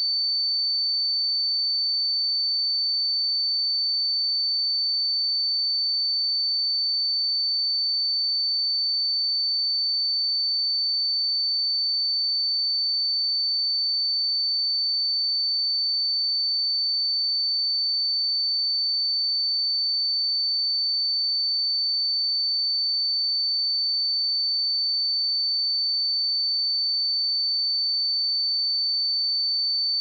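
A pure 4537 Hz sine-wave test tone, held steady at one pitch and level.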